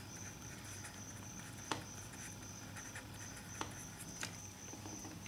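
Faint scratching of a felt-tip marker writing on paper, with a few short soft clicks, over a steady low hiss.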